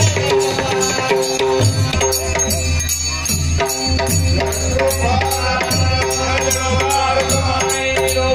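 Devotional bhajan: voices chanting or singing over a steady beat of small hand cymbals and drum, with a held drone underneath.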